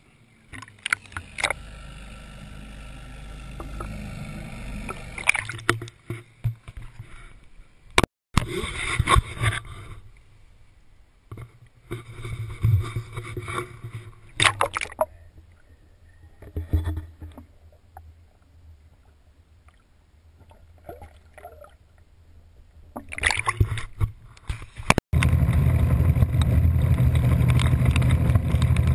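Water slapping and splashing against a small aluminium fishing boat, with knocks from handling, as a largemouth bass is landed by hand at the gunwale. For the last few seconds, after a cut, a loud steady rush of wind and rain with the boat's outboard motor running.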